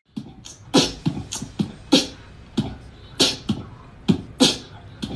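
Background music: a steady percussive beat, with a heavy thump-and-hiss hit about every second and a bit and lighter hits in between.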